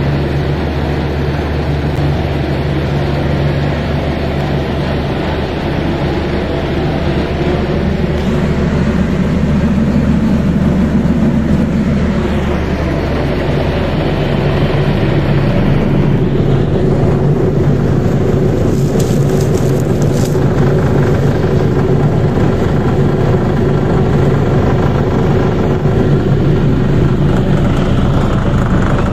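Industrial vibro sifter and its screw conveyor running: a steady motor hum and vibrating rumble over broad mechanical noise, the hum shifting in pitch a few times. A brief high hiss cuts in about two-thirds of the way through.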